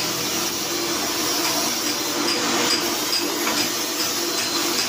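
Steady whir of an electric workshop machine motor running, with faint light ticking over it.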